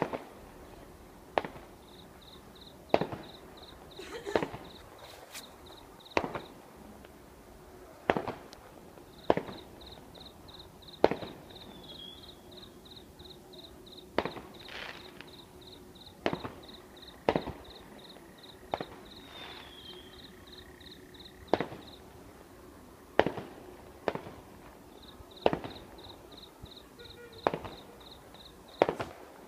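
Fireworks going off: sharp single bangs, each with a short echoing tail, about one every one to two seconds at uneven intervals.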